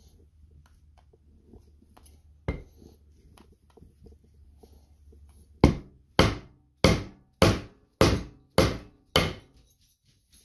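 Hammer blows on a wooden block laid over a bevel gear, driving the gear down onto a Mercury outboard lower unit's bearing carrier. There is a single knock, then a run of seven even, sharp strikes about 0.6 s apart.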